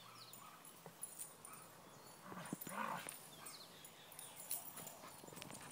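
Small dogs faintly whining and yipping in short sounds, loudest about halfway through, as they wait for the frisbee to be thrown.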